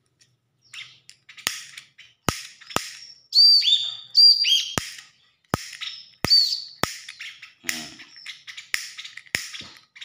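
Pet ciblek (a prinia) calling at close range: a string of sharp chip notes, with a few loud, high whistled notes that drop in pitch about three and a half to four and a half seconds in.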